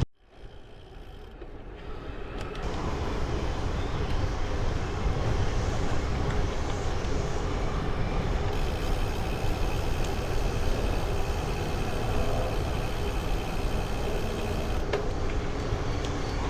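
Wind and road noise on a bike-mounted action camera's microphones fitted with fuzzy wind covers, riding into a headwind: a steady rumble with hiss, building over the first few seconds.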